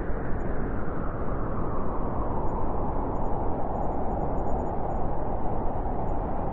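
Strong wind blowing steadily, a dense rushing noise with no gaps, its howl growing a little stronger and higher about two seconds in.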